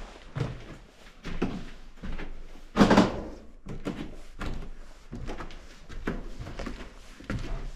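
Irregular knocks, thuds and footfalls of people moving through a derelict building, with one loud bang about three seconds in.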